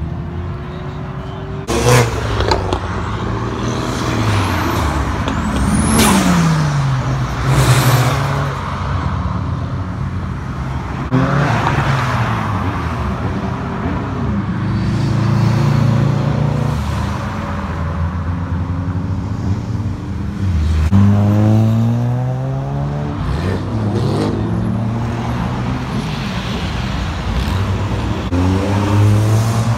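A string of performance cars driving past one after another. Their engines are revved hard and accelerate away, the pitch rising through the gears and dropping as each car passes. There are a few sharp cracks from the exhausts early on.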